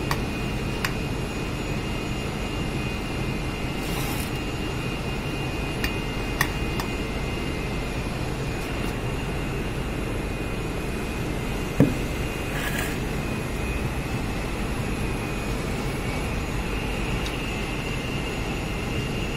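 Steady drone of workshop machinery, with a few light metallic clicks and one sharper knock a little under halfway through as the steel pins and bearing parts of a cycloidal reducer are handled and fitted into its housing.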